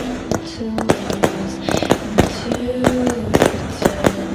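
Aerial fireworks going off in quick succession: a run of sharp bangs and crackles as shells burst, about two to three a second.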